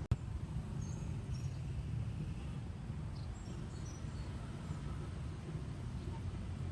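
Outdoor ambience: a steady low rumble with faint, short high chirps of birds or insects scattered through it. A single sharp click sounds just after the start.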